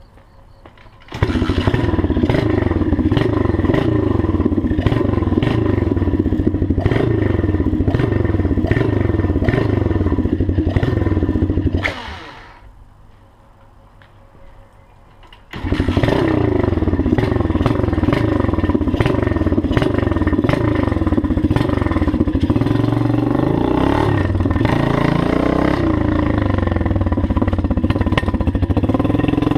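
Pit bike's tuned 110cc Honda-type four-stroke engine with a gutted 125 exhaust. It starts about a second in and is revved in repeated throttle blips, then winds down and cuts out about twelve seconds in. It starts again a few seconds later and runs loud, its revs climbing in steps as the bike pulls away.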